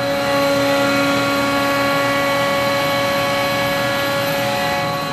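Steady whine and hum of running shop machinery, several held tones over a rushing noise. It swells just after the start and eases off again near the end.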